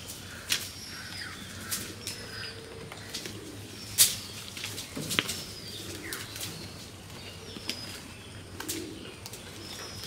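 A goat herd moving and feeding, heard as scattered sharp clicks and rustles, the loudest about four seconds in, with faint bird chirps behind.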